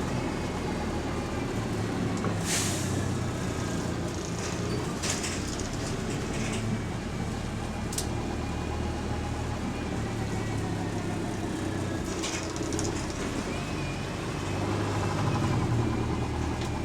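Single-deck bus heard from inside the saloon: its diesel engine runs steadily, with a few short hisses of air from the air brakes and a sharp click. The engine gets louder near the end.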